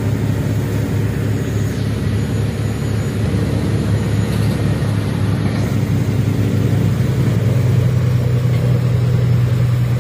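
Patrol boat's engines running hard under way, a steady low drone heard from on board; about seven seconds in the drone steps up slightly in pitch and gets a little louder.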